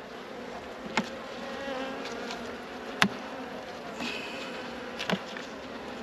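Honeybees buzzing in a steady, slightly wavering hum over an open honey super, with three light knocks about two seconds apart as the wooden frames are handled.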